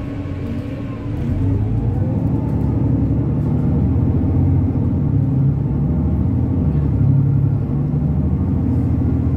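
Engine and road rumble of a city bus heard from inside, growing louder about a second in with a short rising note as it picks up speed.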